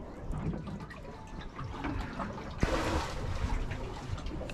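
Water lapping and trickling against a boat's hull, with a sudden short rush of sound, starting with a sharp click, a little past halfway.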